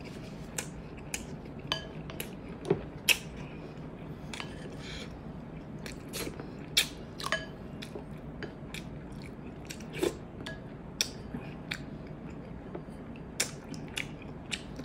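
Close-miked eating: a person chewing, with irregular sharp mouth clicks and smacks, a few louder ones scattered through, over a steady low hum.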